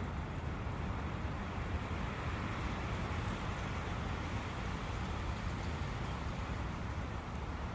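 Steady rushing of a brook running through a forest, an even wash of water noise with no separate events.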